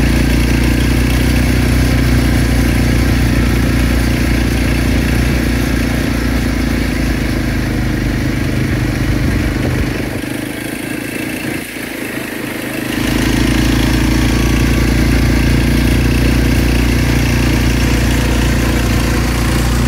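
Small petrol engine running steadily and close by, with a brief drop in its low rumble for a few seconds around the middle.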